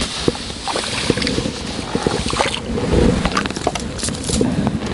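Wind buffeting the microphone in heavy low rumbles, mixed with a scatter of small rustles and knocks from handling close to the microphone.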